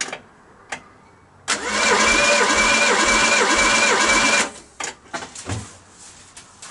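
Ford Pinto four-cylinder engine cranked over by its starter motor for about three seconds with the spark plugs out for a compression test, a steady whir with an even beat of compression strokes about two and a half times a second, stopping abruptly. The owner suspects the battery is failing. A few short clicks come before and after the cranking.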